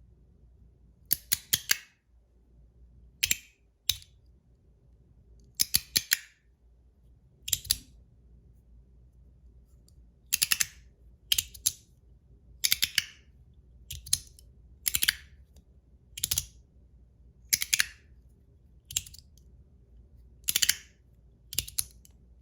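Ant Design S-Nano zirconium magnetic fidget slider being slid back and forth, its plates snapping into place with sharp metallic clicks. The clicks often come in quick pairs, about one group a second.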